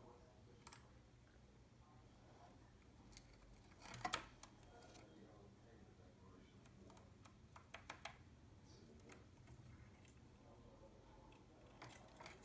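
Near silence broken by scattered small clicks and taps, a cluster about four seconds in and another around eight seconds: budgerigars pecking at seed in a plastic dish.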